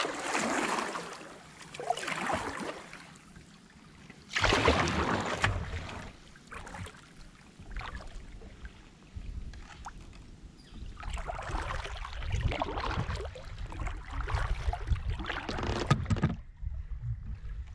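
Kayak paddle strokes splashing and dripping in river water, coming in irregular surges over a low rumble.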